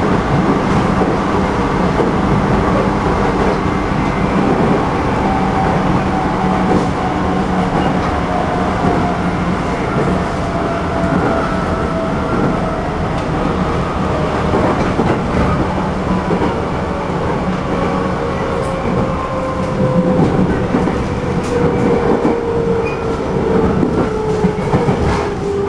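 JR Central 211 series motor car running, heard from inside: rumble of the wheels on the rails and the MT61 traction motors, with a whine that slowly falls in pitch. The car is marked as an abnormal-noise car, its motor sound a severe wavering 'undulation' whose cause is unknown.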